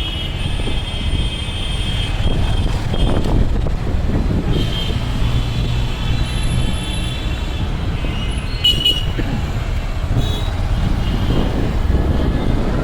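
Busy city road traffic: a steady rumble of engines and tyres, with vehicle horns tooting several times.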